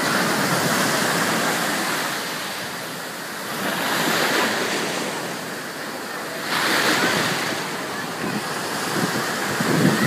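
Ocean surf breaking and washing in through the shallows, a rushing roar that swells and eases every few seconds.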